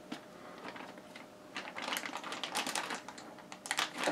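Plastic zipper freezer bag crinkling and crackling in the hands as it is squeezed to push the air out and pressed to seal it. It is faint at first, then a dense run of quick crackles starts about a second and a half in.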